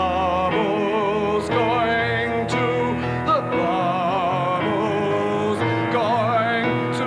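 C. Bechstein grand piano played in a flowing passage, with a wavering sustained melody line above the piano chords.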